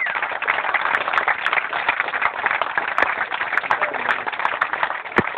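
A room of guests applauding: many hands clapping in a dense, steady patter.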